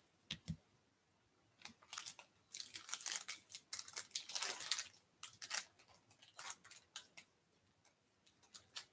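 Foil wrapper of a baseball card pack being torn open and crinkled: a run of crackling rips, then scattered crinkles as the cards are slid out.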